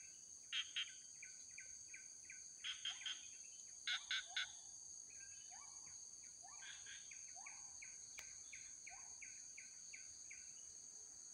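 Steady high-pitched insect drone, with bird chirps repeating throughout and a few louder clusters of two or three quick notes.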